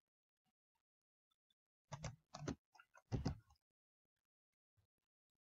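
A quick run of sharp clicks and taps from a computer mouse and keyboard, starting about two seconds in and lasting about a second and a half, with near silence around it.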